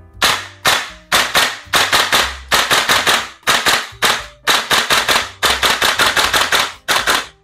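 VFC HK416A5 gas blowback airsoft rifle being fired through a magazine in a quick string of sharp shots, about three a second, each shot with the clack of the bolt cycling.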